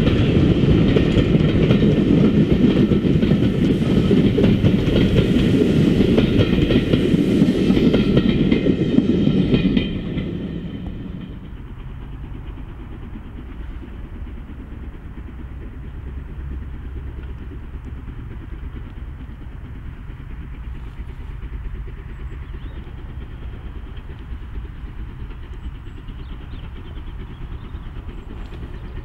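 A steam-hauled train running close by, wheels clattering over the rail joints. About ten seconds in, the sound drops abruptly to a quieter, steady low rumble.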